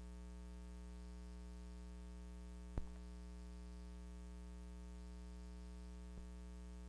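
Steady low electrical hum with a buzz to it. A sharp click comes about three seconds in and a fainter one near six seconds.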